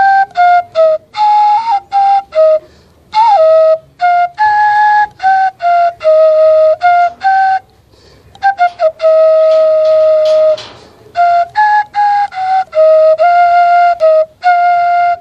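Homemade bamboo native flute played: a slow melody of short separate notes, with brief breaks between phrases, and one long held low note about two-thirds of the way through.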